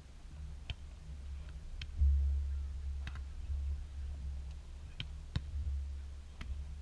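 Beach volleyball being struck by hand: a jump serve just after the start, then about five more sharp slaps of ball contacts as the rally goes back and forth, two of them close together near the end. Under them is a steady low rumble of wind on the microphone.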